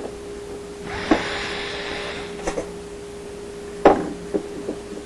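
Tool-and-part handling noises while screws are taken out of a dishwasher's metal panel: a scraping hiss about a second in, then several sharp clicks and knocks, the loudest near the four-second mark, over a faint steady hum.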